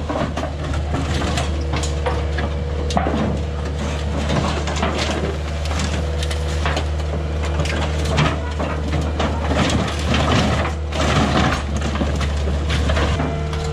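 Compact track loader's engine running steadily while its grapple attachment clamps and folds a pile of demolition debris, with many sharp cracks and crunches of breaking boards and crushed tarps and plastic.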